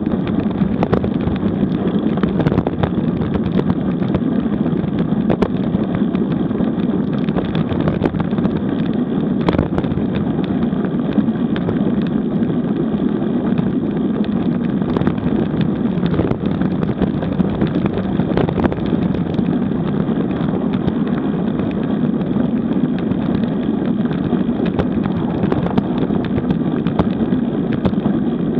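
Steady rumble of a road bike rolling over cracked, patched asphalt at about 30 km/h, with wind on the microphone and frequent small clicks and knocks from the rough surface.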